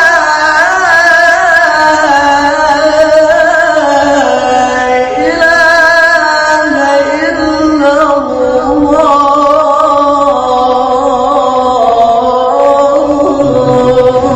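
A male muezzin chanting the adhan, the Islamic call to prayer: one long unbroken melismatic phrase, its pitch wavering and turning in ornaments.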